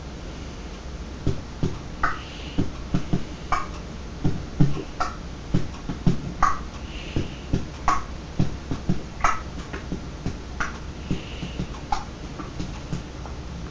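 A person making mouth sound effects: a long run of tongue clicks and lip pops. A sharper click comes about every second and a half, with softer pops in between.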